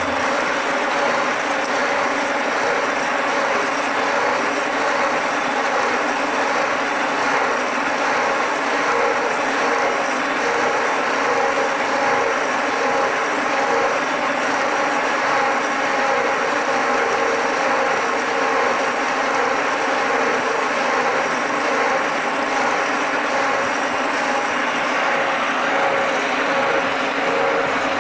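Milling machine running steadily while cutting a block of steel: an even mechanical drone with a few fixed whining tones from the drive, unchanged throughout.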